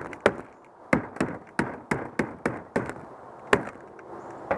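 Repeated knocks on the PVC pipe fittings of a kayak shade frame, about a dozen sharp blows at an uneven two to four a second, fewer toward the end, as the shade top is worked loose from its pivot bushing.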